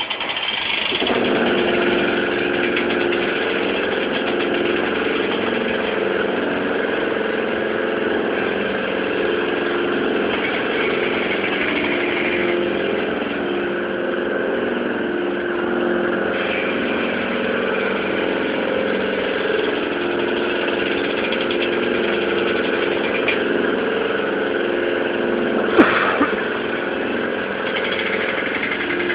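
A children's airplane carousel ride's drive machinery running steadily with a constant hum. A single sharp knock comes near the end.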